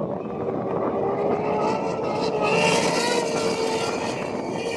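Outboard engines of racing powerboats running flat out, a steady high-pitched drone. About halfway through, one boat passes close and its engine note and the rush of spray grow loudest.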